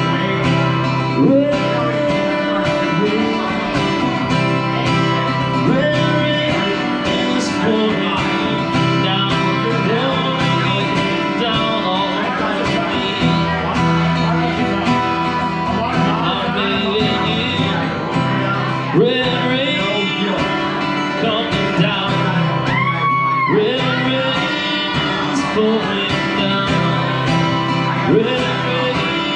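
A man singing live to his own strummed acoustic guitar, amplified through a PA speaker.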